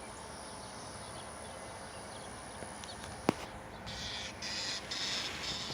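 Quiet open-field ambience with a faint steady high whine, a single sharp click about three seconds in, then a buzzy high-pitched call in short stuttering bursts.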